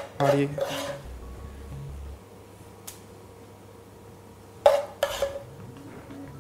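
A metal spoon clinking and scraping in a frying pan as chopped egg and parsley are spooned out onto a plate: one short click about three seconds in, then a louder clatter of scrapes a second and a half later. Faint background music runs underneath.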